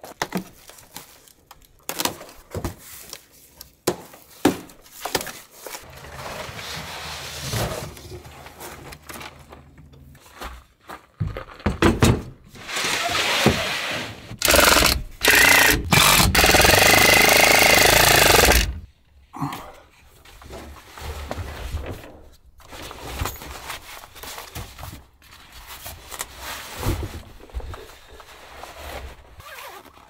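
Scattered knocks and scrapes of handling gear, and around the middle a cordless drill driving screws into a metal fridge slide mount in several loud runs, the last and longest with a steady motor whine.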